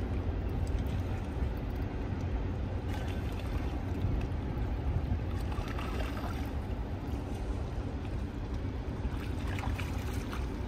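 Wind buffeting the microphone: a steady low rumble, with an even hiss above it.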